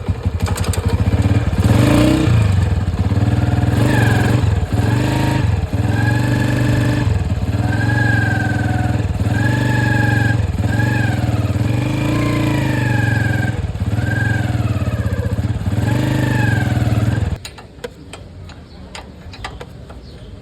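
Motorcycle engine running loudly with a steady drone, cutting off suddenly about three-quarters of the way through, after which only faint scattered ticks remain.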